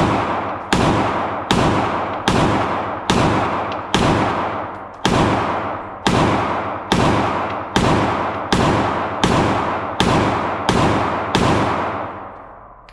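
A handgun fired in a steady string of about fifteen shots, roughly one every three-quarters of a second, each shot ringing out with a long echo; the string stops about a second before the end.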